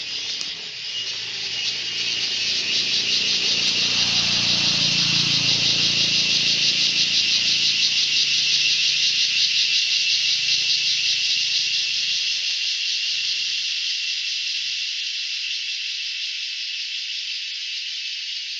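Dense forest insect chorus, a loud high-pitched buzz with a fast pulsing, running without a break. Under it, a low engine hum swells a few seconds in and fades out after about fifteen seconds.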